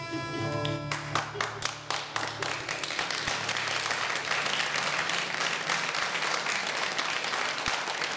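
Live music ends on a held chord, and about a second in an audience breaks into applause that carries on steadily.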